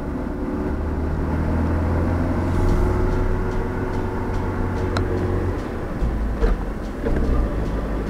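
Car engine and road noise heard from inside the cabin while driving: a steady low rumble and hum whose pitch drops lower about six seconds in, with a few faint clicks.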